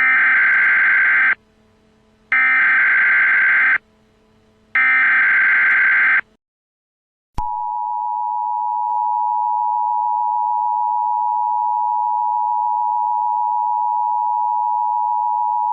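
Emergency Alert System SAME header: three equal bursts of shrill data warble, each about a second and a half long and a second apart, marking the start of a new alert message. After a short pause comes the EAS two-tone attention signal, a steady dual tone just under 1 kHz held for about eight seconds.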